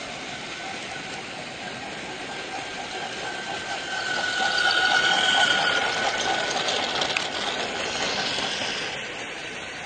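A vehicle running past, growing louder to a peak about five seconds in and then fading, with a steady whine through it.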